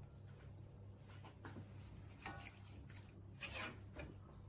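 Faint, brief hisses of cooking-oil spray being sprayed onto the bottom of a baking dish, a few short squirts.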